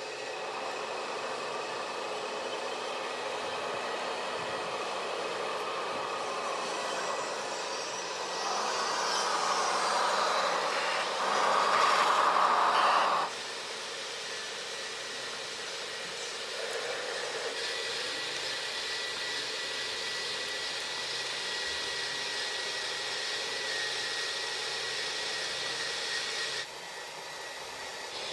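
Steady electric whirring of radio-controlled model construction machines: the motors of a model excavator and dump truck, then of a model conveyor belt. The whir swells for a few seconds about halfway through, then drops off suddenly, and shifts again near the end.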